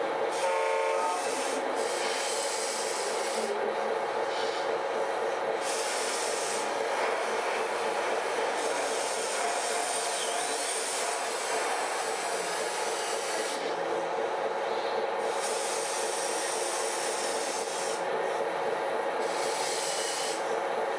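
Radio-controlled scale model trucks running, a steady mechanical drone of motors and gearing, with a short horn-like tone about half a second in.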